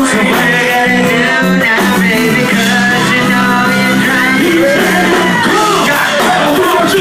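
Rock-style band music at a steady loud level: a held low chord under high notes that slide and bend.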